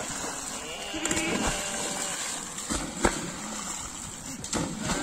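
Sheep and goats leaping off a bank into water one after another, each hitting the water with a splash, the loudest about three seconds in. A few faint bleats come in between.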